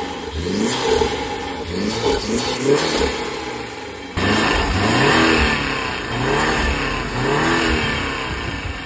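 BMW 330e's 2.0-litre turbocharged four-cylinder petrol engine revved in repeated short throttle blips. For the first four seconds or so it breathes through an aftermarket cone air filter; after a sudden cut it breathes through the original factory airbox.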